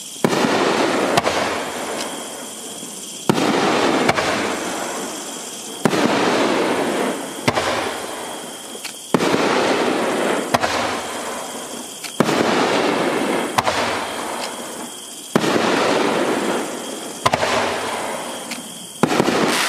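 Magnus Fireworks Centrifugal Force 500-gram cake firing. Sudden bangs come one after another, roughly every one and a half to two seconds, each followed by a second or so of noise fading away.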